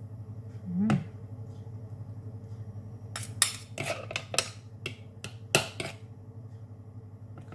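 A metal teaspoon and a plastic spoon clicking and scraping against a plastic mixing bowl as a liquid dressing is stirred, with a run of sharp clicks between about three and six seconds in.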